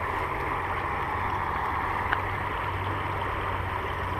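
Creek water running steadily in a small current, with a single light tick about two seconds in.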